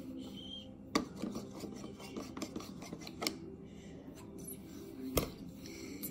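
Scraping and rubbing of small cups and utensils against a glass jar, with a few sharp clinks and knocks: one about a second in, others a little after three seconds and near the end.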